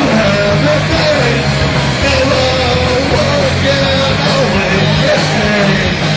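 A live rock band playing loud, led by electric guitar over steady low bass notes.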